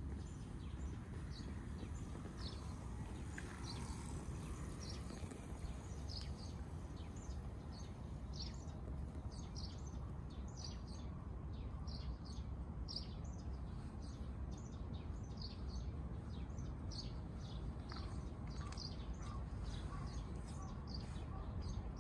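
Small birds chirping: many short high chirps, coming more thickly in the second half, over a steady low rumble of outdoor background noise.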